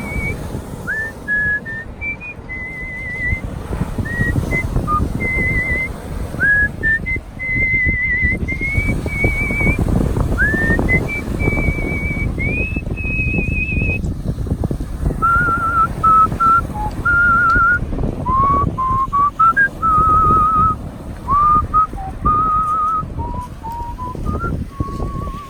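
Virtuoso artistic whistling of a melody, one note at a time with vibrato and quick upward slides into the notes. The melody sits high at first and moves lower about fifteen seconds in, over a steady rushing noise underneath.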